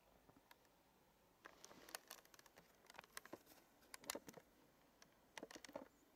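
Faint scattered clicks and soft rustles in near-quiet room tone, coming in short clusters about a second apart.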